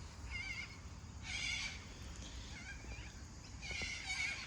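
Birds calling: four short, warbling calls, the two longest about a second in and near the end.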